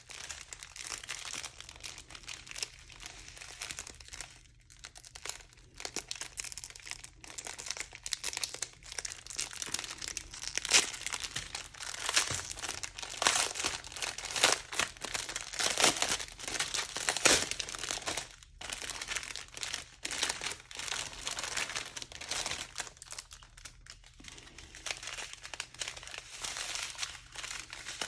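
Small plastic packets of round diamond-painting drills crinkling and crackling as they are handled and turned over, louder about halfway through.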